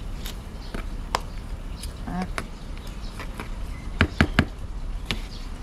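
Scattered small taps and clicks of gloved hands and a small garden tool working soil into a plant pot, with three sharper knocks close together about four seconds in.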